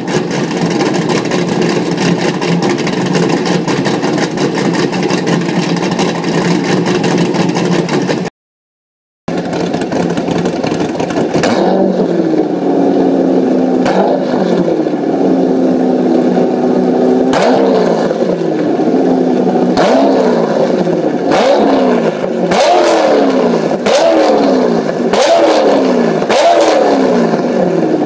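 Built 427ci LS7 V8 in a C5 Corvette Z06, running through a Corsa Xtreme exhaust, idling loudly and steadily. After a short dropout about eight seconds in, it is blipped about nine times, each rev sweeping up quickly and falling back to idle, with the blips coming faster toward the end.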